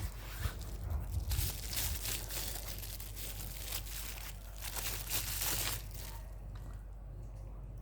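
Packaging being handled by hand during an unboxing: plastic and paper crinkling and tearing in irregular bursts that die down about six seconds in.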